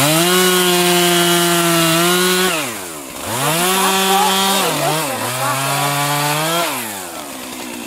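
Stihl chainsaw cutting through a thin tree trunk: the engine revs up to full throttle and holds, drops back briefly about two and a half seconds in, then revs up again, its pitch sagging lower under the load of the cut before it falls back to idle near the end.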